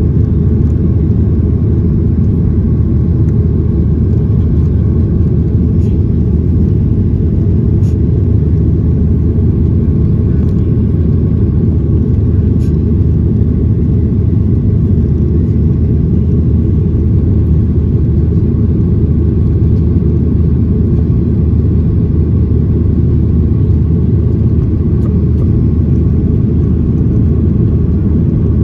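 Steady low rumble of engine and air noise inside the cabin of a Boeing 737-800 airliner, unchanging throughout.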